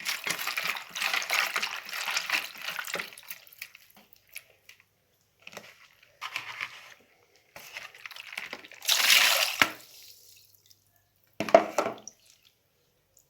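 Water splashing and dripping in several short bouts.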